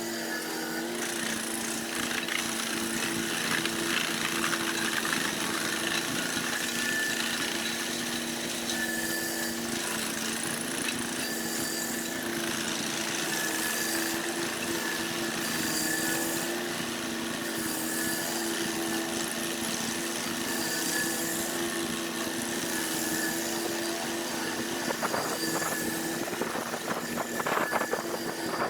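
Engine-driven cutting machine running steadily at high speed, with a continuous grinding noise over the engine note. A run of sharp knocks comes near the end.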